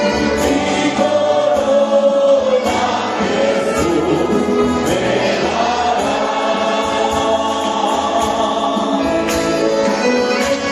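A church congregation singing a hymn together in Spanish, a choir of many voices, with instruments accompanying.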